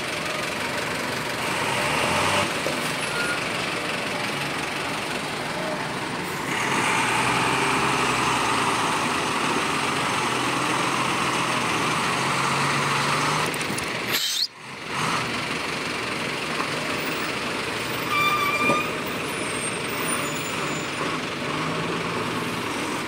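Heavy diesel truck engine working under load on a rough gravel road, revving harder for several seconds in the middle while it pours black exhaust smoke. A short high squeal comes near the end.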